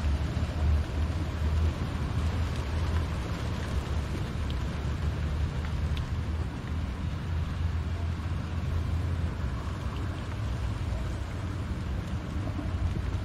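Steady low rumble of a car driving, heard from inside the cabin, with the hiss of rain on the windscreen and a few faint drop ticks.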